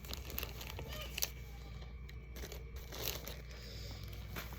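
Plastic goodie bags and packaging being handled, with light crinkling and a few small clicks.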